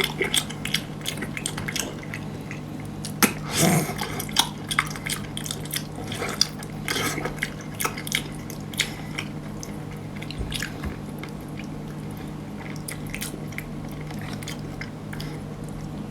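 Close-up wet chewing and biting of seafood, with many small, irregular smacking clicks over a steady low hum.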